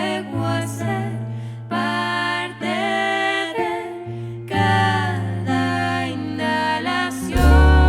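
Jazz-pop band music playing an instrumental passage, with melodic lines over a bass part. A deep, louder bass note comes in near the end.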